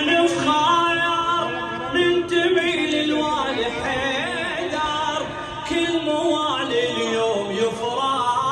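Men singing a devotional chant in long held notes that waver and bend between phrases.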